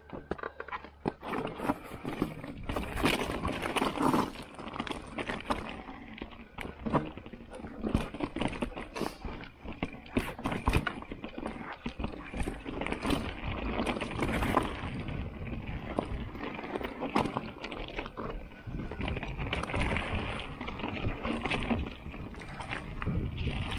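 Mountain bike descending rocky singletrack: tyres running over loose stones and rock, with frequent sharp knocks and rattles from the bike over the rough trail.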